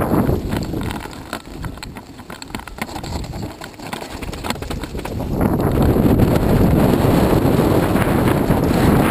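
Mountain bike rolling fast down a loose gravel trail: tyres crunching over stones and the bike rattling with many quick clicks. About five seconds in, wind buffeting the microphone grows loud and covers most of it.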